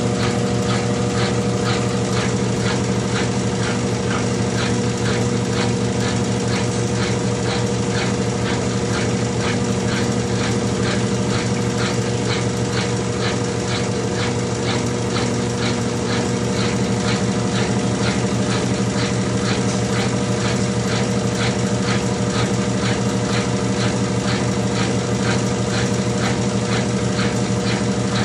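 Consul 12 kg top-load washing machine running steadily, a constant motor hum with a fast, regular ticking of about three beats a second.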